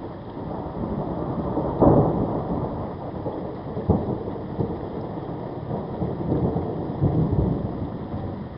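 Thunder rolling over steady rain. It swells in, cracks sharply about two seconds in and again about four seconds in, rumbles more heavily around seven seconds, then fades toward the end.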